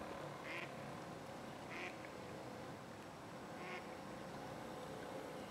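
A duck quacking three times, short rough calls spaced about one to two seconds apart, over a faint steady hum.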